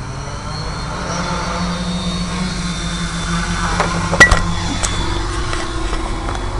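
Quadcopter's brushless motors whirring steadily as it lifts off and climbs, growing louder over the first second or two, with a sharp click about four seconds in.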